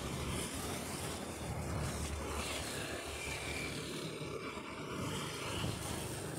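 Steady traffic noise: a continuous hum of vehicles with a low rumble.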